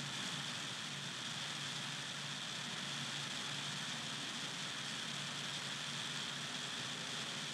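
Steady hiss with a faint low hum underneath and no distinct events: the background noise of the recording microphone between spoken narration.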